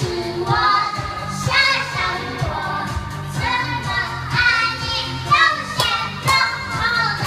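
Karaoke: a pop song with a sung vocal over a steady beat, played through a home karaoke set.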